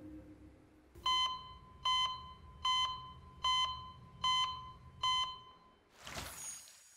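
Electronic alarm-clock beeping: six high-pitched double beeps, a little under a second apart, starting about a second in as the last held music notes fade. A short burst of rushing noise follows near the end.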